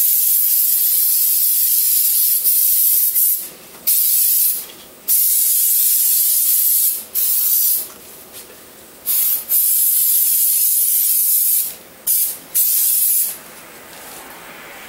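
Aerosol brake caliper cleaner spraying in a string of bursts, several lasting two to four seconds, then a few quick short puffs near the end.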